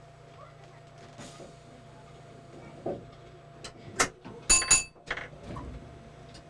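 Inside an electric train's cab stopped at a platform: a low steady hum, then a few sharp knocks and clunks from about three seconds in, with a brief ringing tone among them.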